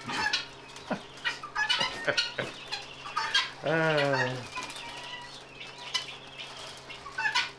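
Alpacas feeding at plastic troughs: scattered short clicks and knocks of muzzles and feed, with one short wavering animal call just under four seconds in.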